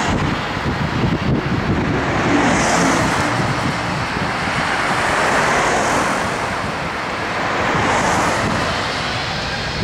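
Airbus A380's four Engine Alliance GP7000-series turbofans running at low thrust as the airliner taxis: a steady rushing hum with a faint whine, swelling a little about three seconds in and again near eight seconds.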